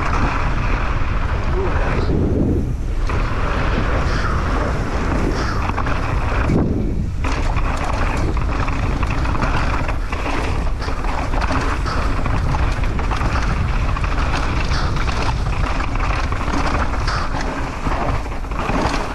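Mountain bike descending a rough dirt trail at speed: wind buffeting the microphone, with tyre noise and the rattle of the bike over rocks and roots. The tyre noise and rattle fall away briefly twice, about two and a half and seven seconds in.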